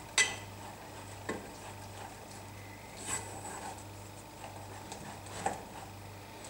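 A spatula stirs and scrapes a thick glue-and-cornstarch paste (homemade cold porcelain) cooking in a saucepan, with a few sharp clicks as it knocks against the pan, over a faint steady low hum.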